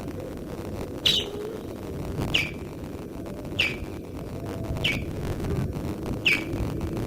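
Osprey giving repeated alarm calls at an intruder: five short, high, downward-slurred cheeps, about one every second and a quarter, at an even, unhurried pace.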